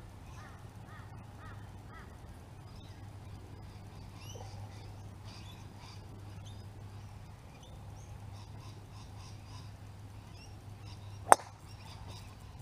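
A golf club strikes a ball off the tee with one sharp crack about eleven seconds in, by far the loudest sound. Before it, birds call faintly over a steady low hum.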